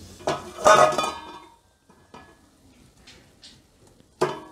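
Cookware clanking as roasted mava is scraped from a nonstick pan into a stainless steel bowl. A ringing metal clank comes about half a second in and another near the end, with light scrapes and taps between them.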